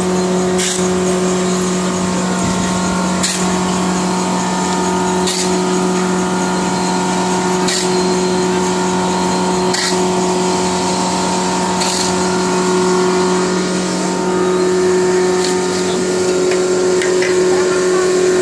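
Chain-driven belt conveyor and its electric drive running: a steady machine hum and whine, with a short sharp click about every two seconds for much of the time.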